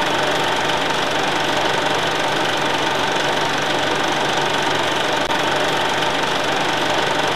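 A machine running steadily, with an even, unchanging mechanical rattle and hum.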